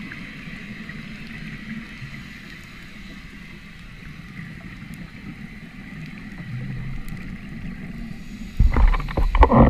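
Muffled underwater ambience heard through a dive camera's housing, a steady low rumble and hiss. Near the end come loud, irregular rumbling bursts of scuba regulator exhaust bubbles.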